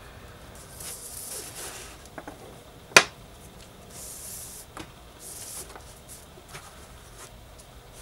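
Paracord being pulled and slid through a tightly woven bracelet, soft swishing rubs of cord on cord, with one sharp click about three seconds in.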